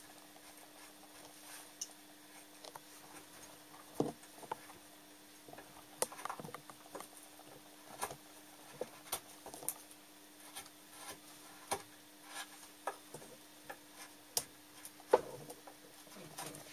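Hand carving of wood with a small cutting tool: faint, irregular clicks and scrapes as the blade cuts and the shavings shift, over a steady faint hum.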